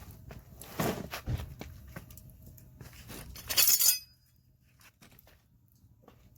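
Hard objects clinking and knocking, with a short loud hissing burst about three and a half seconds in; after that it is much quieter.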